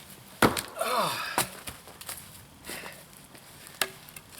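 Two heavy axe blows into a stringy, knotty firewood round that won't split, with an effortful falling groan between them and a lighter knock near the end.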